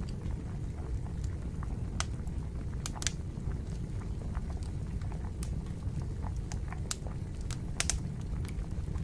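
Wood fire burning: irregular sharp crackles and pops from the logs over a low, steady rumble of the flames.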